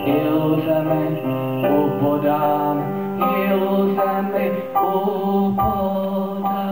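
Electronic keyboard playing sustained chords that change about every second and a half, with a man singing over it.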